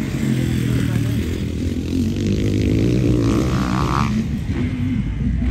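Several motocross dirt bike engines revving, their pitches rising and falling as the bikes race on the track.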